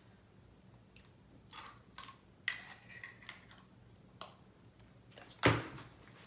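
Small scattered clicks and taps of a plastic spoon and a baby-food jar being handled, with one much louder sudden sound about five and a half seconds in.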